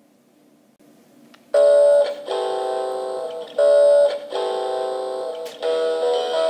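Hasbro I-Cat robot cat toy playing an electronic tune through its small built-in speaker, starting about one and a half seconds in. It repeats a pattern about every two seconds: a short loud note, then a longer, quieter held tone.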